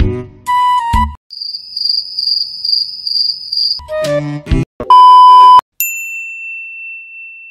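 Comedy sound-effect crickets chirping: a steady, pulsing high trill for about two and a half seconds, between snippets of music. Later comes a loud electronic beep, then a long thin high ringing tone.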